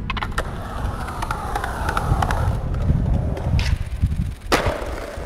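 Skateboard wheels rolling on pavement, with sharp clacks of the board and one loud board impact about four and a half seconds in.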